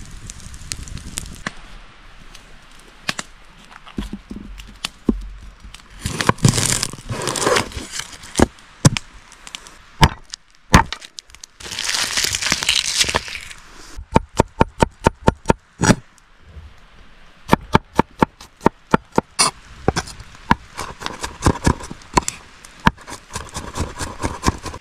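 Knife chopping on a wooden cutting board: runs of quick knocks, about four a second, with two stretches of scraping in between.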